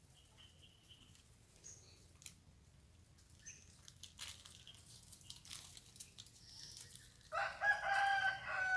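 A rooster crows once near the end, one call of about a second and a half. Before it there are only faint scattered clicks and rustles.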